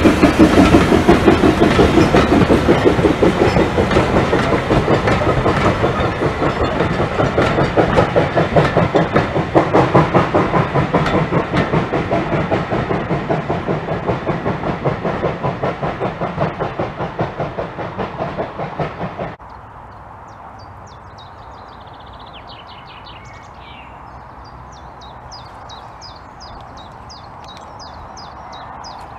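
Bagnall steam saddle tank locomotives and their coaches passing and drawing away: a rhythmic beat of exhaust and wheels clicking over rail joints, fading steadily. It cuts off abruptly about 19 seconds in, leaving a quiet background with birds chirping.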